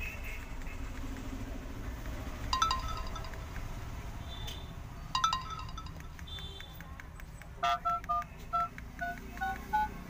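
Keypad tones of a Jio F320 keypad phone as number keys are pressed: a quick run of about eight short two-note dialling beeps of changing pitch near the end. Two brief chimes from the phone come earlier. The tones show that the freshly flashed phone is on and responding.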